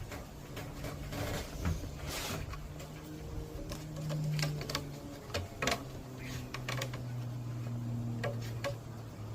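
Light wooden clicks and knocks, irregular, as plywood frame pieces are handled and fitted together, over a low steady hum.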